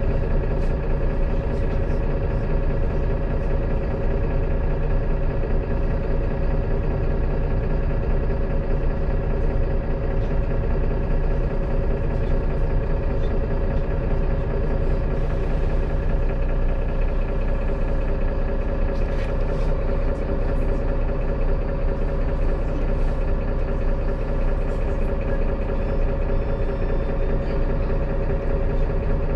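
Mercedes-Benz city bus standing with its engine idling, heard from inside the passenger cabin: a steady hum holding a few even tones.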